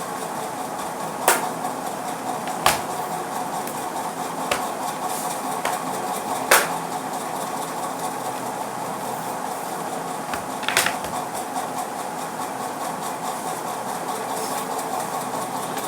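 Plastic laptop back panel being fitted back on: about six sharp clicks and knocks, spread unevenly, over a steady background hum.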